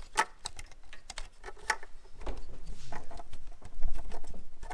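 Plastic electrical connectors clicking and a wiring harness rustling as it is handled, with a string of irregular small clicks while an inline harness connector is fitted to a fuel injector plug.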